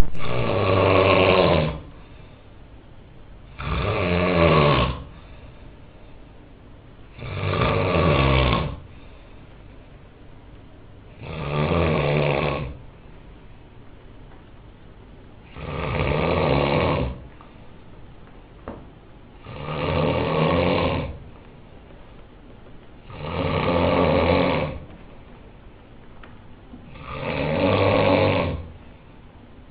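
Snoring: eight snores in a steady rhythm, each about a second and a half long and coming roughly every four seconds, with little but faint breathing noise between them.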